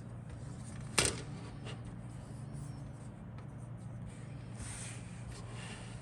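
Small handling noises: one sharp click about a second in and a brief faint rustle later, over a steady low electrical hum.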